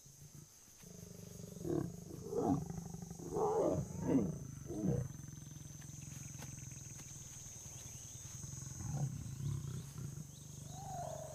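Lions calling: a run of about five deep, short calls in the first few seconds, then a few fainter ones near the end, over a steady low hum.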